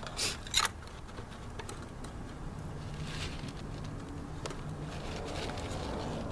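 Oil dipstick scraping and clicking in a riding mower's dipstick tube while the oil level is being checked: two sharp clicks in the first second, the second the louder, then faint handling sounds.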